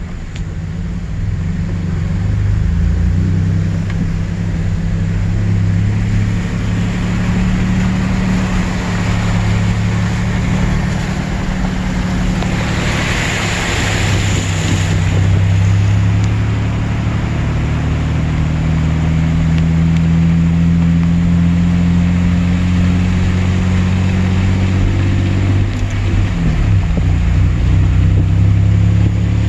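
Four-wheel-drive vehicle's engine running steadily under load while driving through floodwater over the road. A rush of water splashes against it about halfway through.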